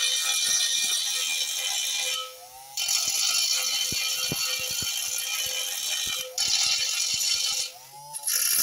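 Small hand-held DC motor with a green abrasive disc grinding the angle-iron bed way of a homemade lathe to level it: a harsh, steady grind. It breaks off twice as the disc lifts from the metal, and each time the motor's whine rises as it spins free.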